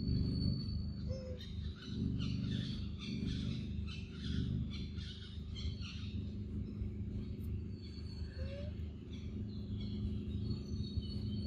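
Forest birds chirping and whistling, a busy flurry of short chirps in the first half, over a steady low rumble.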